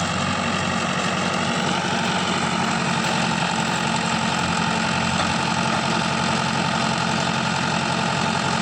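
Diesel tractor engine running steadily at an even pitch.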